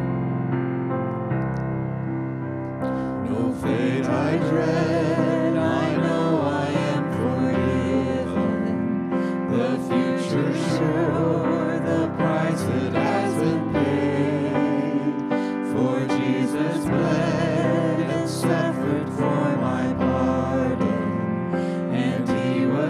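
Worship team's song: piano or keyboard playing with voices singing over it, the sound growing fuller about three and a half seconds in.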